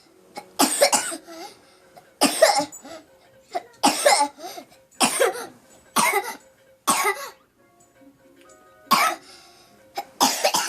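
A child coughing in a fit: about eight separate coughs, one every second or so, with a short pause before a last quick pair near the end.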